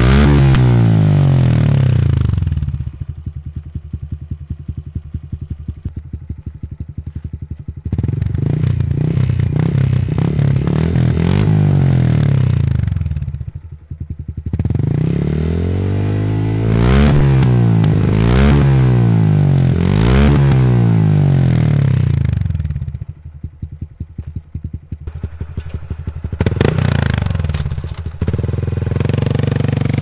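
Honda Trail 125 (CT125) single-cylinder engine through a Yoshimura straight-through Cyclone full exhaust, revved in repeated throttle blips. Between the blips it falls back to a loping idle with each firing pulse audible, and now and then it holds a steady higher speed.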